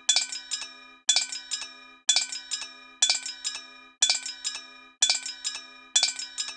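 A looped metallic chime pattern repeating about once a second: a bright strike followed by a few quieter ringing clinks, with bell-like tones dying away before the next repeat.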